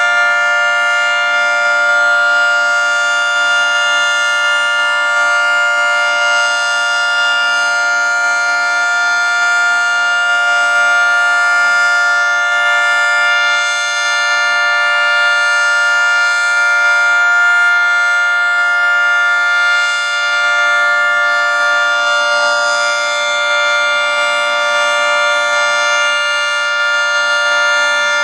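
Federal Signal 3T22 three-tone outdoor warning siren sounding its steady alert signal: a loud, sustained chord that holds one pitch without rising or falling.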